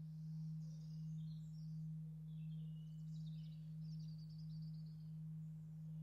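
Low hum note of a scale-model bell, cast in a Portland stone mould, ringing on long after its last strike. It is a single steady tone that swells and fades a little more than once a second, with faint bird chirps over it.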